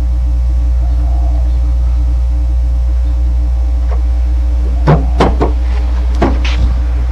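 Steady low electrical hum from the old tape recording, with a handful of sharp clicks about five to six and a half seconds in as a bent wire tool, slipped past the weather stripping, catches and works a Ford Fairmont's door-lock knob.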